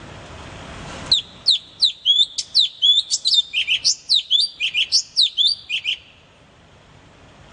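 A small bird calling in a fast series of sharp chirps, each note dropping steeply in pitch, about four a second. The chirps start about a second in and stop about six seconds in.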